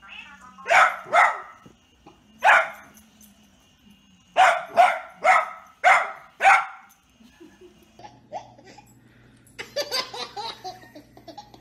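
A dachshund barking in short, sharp barks, eight in about six seconds: a pair, a single, then a run of five. Near the end, after a cut, a baby babbles and squeals over a low steady hum.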